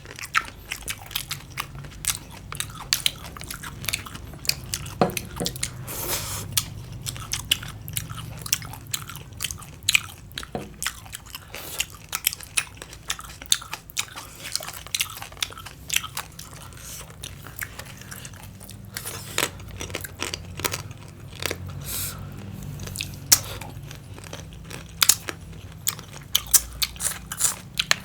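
A person chewing and biting crunchy green papaya salad and cucumber close to the microphone: a steady run of irregular crisp crunches and clicks.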